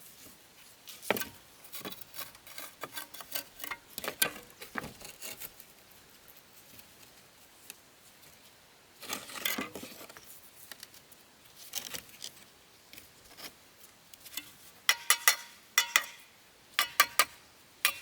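Irregular light taps and clicks of hand work, with sharp metallic clinks that come in a quick cluster near the end.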